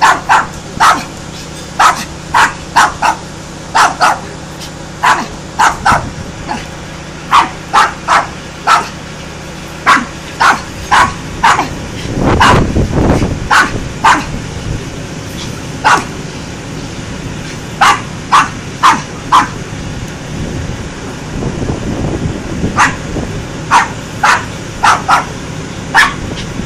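A dog barking repeatedly, short sharp barks in quick runs of two to four with brief pauses between. A low rumble swells briefly about halfway through.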